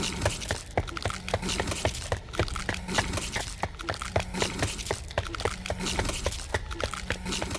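A quick, irregular run of sharp clicks and knocks, several a second, over a faint low hum.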